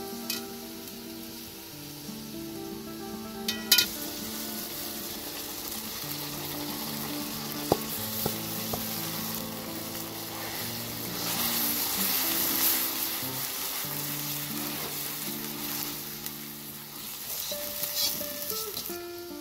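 Tomato sizzling and frying in hot oil in a large round-bottomed pot, stirred with a metal skimmer that clicks against the pot a couple of times. Soft background music with held notes plays underneath.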